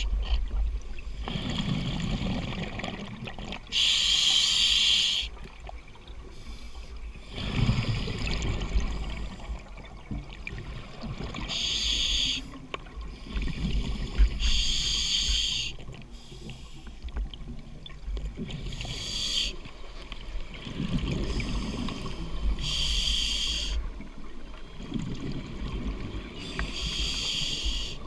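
Scuba diver breathing through a regulator underwater, heard through a GoPro housing: about six short hissing inhalations a few seconds apart, with bubbling exhalations in between.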